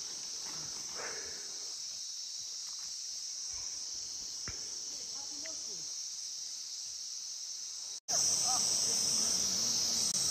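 A steady, high-pitched chorus of insects. It cuts out for an instant about eight seconds in and comes back louder.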